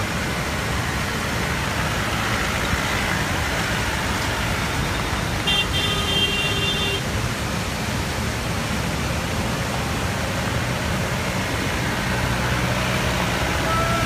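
Diesel jeep engine running at low speed as the vehicle creeps closer over gravel, growing louder near the end, over the steady rush of a waterfall. A brief high tone sounds about five and a half seconds in.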